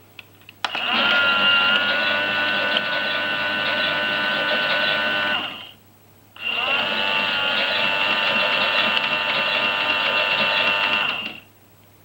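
Toy Miele washing machine's small drum motor whining as it tumbles the wash, in two runs of about five seconds with a short pause between, the pitch settling just after each start. A few light clicks come just before the first run.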